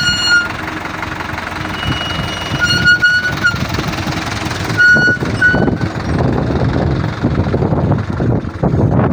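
Strong wind buffeting the microphone in gusts, with a low rumble underneath. Short, steady, high-pitched beeps sound a few times.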